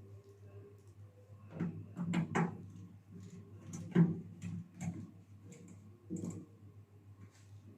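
Irregular clicks and knocks of parts and tools being handled on a microwave oven under repair, over a low steady hum. The sharpest knock comes about four seconds in.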